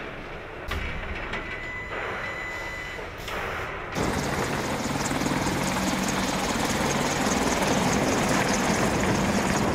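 Boeing AH-64 Apache attack helicopter flying low, its twin turboshaft engines and rotors running steadily; the loud rotor and engine sound comes in suddenly about four seconds in, after a quieter stretch.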